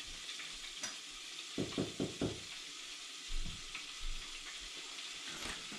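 Hot oil sizzling steadily in a lidded countertop deep fryer, with a few soft knocks about one and a half to two seconds in.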